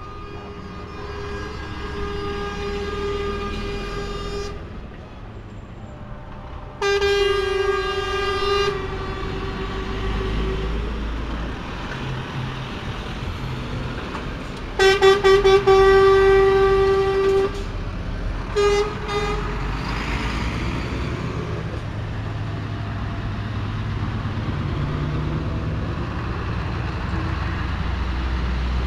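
Trucks in a passing convoy sounding their horns: a long steady blast, another a few seconds later, then the loudest, opening with a rapid stutter of short toots, and two quick toots after it. Diesel truck engines rumble underneath throughout, and only their rumble and road noise remain for the last third.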